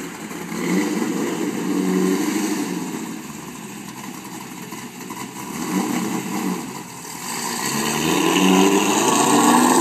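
Chevrolet C5 Corvette's V8 engine revving as the car pulls away, rising in pitch in three pulls: one about a second in, a short one around the middle, and the longest and loudest near the end.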